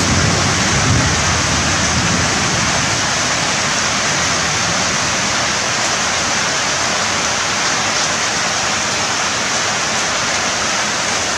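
Heavy rain falling steadily, a continuous even hiss of downpour.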